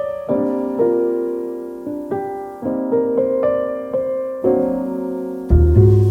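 Background piano music: notes struck one after another and left to ring. A deep bass line comes in near the end.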